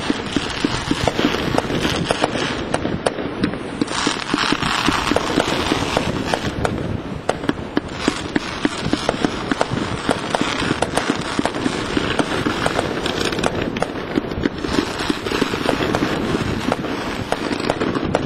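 Ground-level fireworks going off in a dense, unbroken run of sharp pops and crackling.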